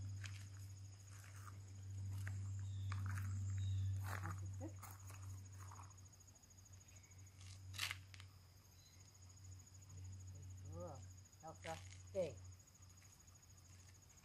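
Insects trilling steadily in two high, even tones, with a low rumble beneath. Short stretches of quiet voice and a single sharp click come through over them.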